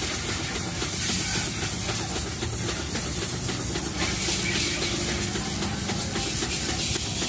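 Pressure-washer water jet spraying a motorcycle: a steady hiss of spray with water splashing off the bike.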